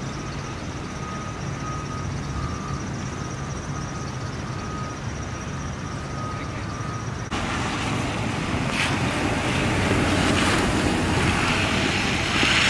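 Steady outdoor rushing noise, largely wind on the microphone, with a faint on-and-off high tone in the first half. About seven seconds in, it cuts abruptly to a louder rushing noise.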